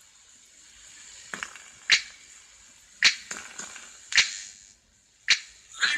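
Homemade FM radio receiver's speaker in a gap between broadcast items: a faint steady hiss with about six sharp, short clicks or hits spaced roughly a second apart.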